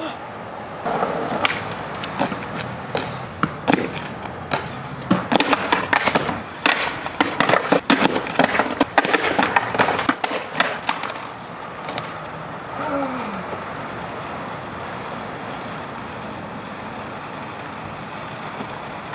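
Skateboard on rough asphalt: wheels rolling with a run of sharp wooden clacks as the board is popped, lands and clatters down in slams, thickest from about one to eleven seconds in. After that it eases to a steady rolling hiss.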